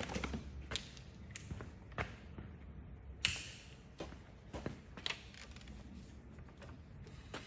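Sparse light clicks and knocks, one or two a second, as a Ford 5.4L three-valve V8 is turned over slowly by hand with a breaker bar on the crankshaft bolt. A chunk of broken timing-chain guide is being drawn in under the chain.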